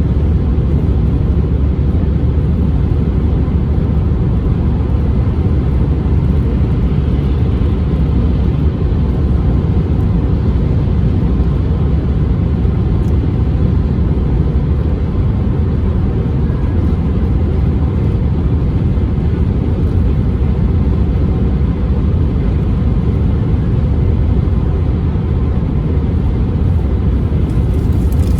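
Steady low rumble of a car driving along a road: engine and tyre noise, unchanging throughout.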